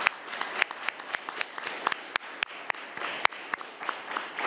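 Audience applauding: many hands clapping together, with a few louder single claps standing out from the patter.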